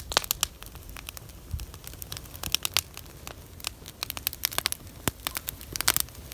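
Irregular crackling clicks, some sharper than others, over a faint low hum.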